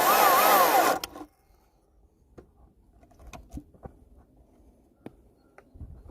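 Stihl MSA 220 C battery chainsaw running, its motor whine dipping and rising, then cutting off suddenly about a second in. A few light clicks and knocks follow in near quiet.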